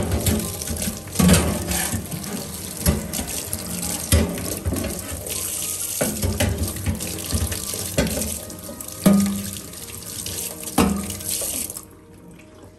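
Kitchen tap running into a stainless steel sink as soapy gas-stove grates are rinsed under it, with the metal grates knocking against the sink now and then. The water stops near the end.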